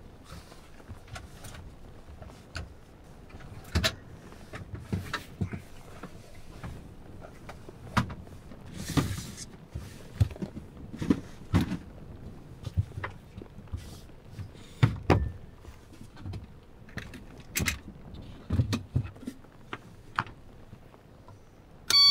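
Irregular knocks, clunks and clicks of gear being handled and moved about in a camper van while camp is set up. There is a short hissy rustle about nine seconds in, and a short electronic beep at the very end.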